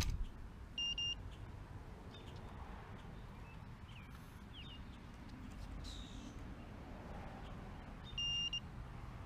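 Two short, high electronic beeps, each a steady pitch, the first about a second in and the second near the end, seven seconds apart, from the drone setup while the quadcopter's motors are stopped. Between them there is only a faint outdoor background.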